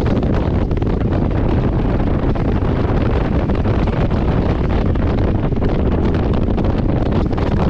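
Steady rumble of wind buffeting the microphone of a motorcycle-mounted camera at riding speed, mixed with the bike's engine and tyre noise.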